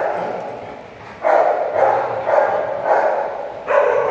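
Dogs vocalizing during rough play-wrestling: a string of short barks, about two a second, starting about a second in.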